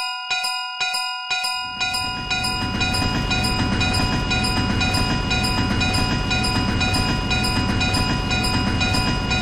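Railway level-crossing warning bell dinging about twice a second. About two seconds in, the low rumble of a passing train rises and continues steadily under the bell.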